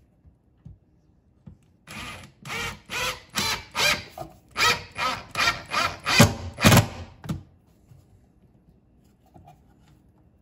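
Cordless drill/driver driving a screw through a fishfinder mount's base into the boat console, run in a quick series of short pulses, about two a second, for some five seconds, the last few the loudest.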